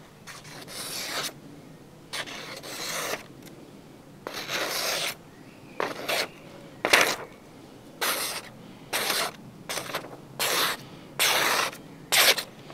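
Cold Steel Survivalist drop-forged knife blade drawn through material in about eleven scraping slicing strokes. The first three are long, about a second each, and from about halfway on the strokes come shorter and quicker. It is a test of whether the edge is still sharp along its whole length after heavy use.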